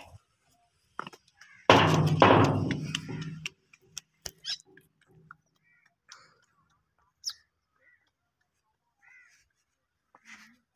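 Sheet-steel gate swung shut: a loud metal clang about two seconds in that rings and rattles for under two seconds, followed by a few faint clicks.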